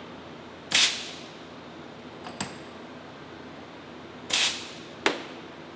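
Two short blasts of compressed air from an air hose nozzle into a frozen aluminum brake cylinder, blowing pressure behind the seized steel piston after the cylinder has been heated and quenched. The first blast comes about a second in and the second about four seconds in, with a sharp click between them and another just after the second.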